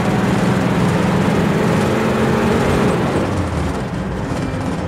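Bus engine running with road and wind noise, heard from inside the moving bus. The engine's steady low note drops lower about three seconds in.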